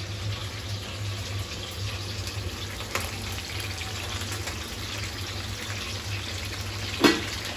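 Cauliflower florets sizzling steadily in hot oil in a kadai, over a steady low hum. A metal skimmer knocks against the pan once about three seconds in and again, louder, near the end.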